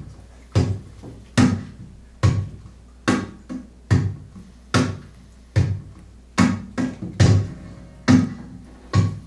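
Acoustic guitar played percussively: a sharp hit a little more often than once a second, with lighter hits between and a low chord ringing under them, in a steady beat.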